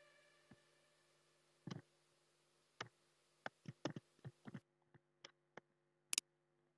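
Scattered, irregular clicks from a computer mouse and keyboard, about fifteen in all, with a faint steady hum beneath.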